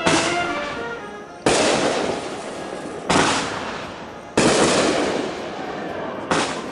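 Aerial fireworks bursting overhead: five sharp booms, roughly one every one and a half seconds, each trailing off over a second or so.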